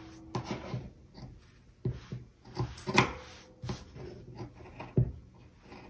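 Scissors snipping through the corners of a thick stack of cotton fabric and batting: several short snips about a second apart, with fabric rustling against the cutting mat between cuts.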